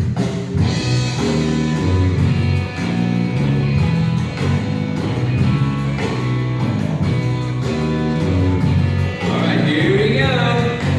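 Upbeat sing-along song starting abruptly: a guitar-backed instrumental intro with a steady beat, and a singing voice coming in near the end.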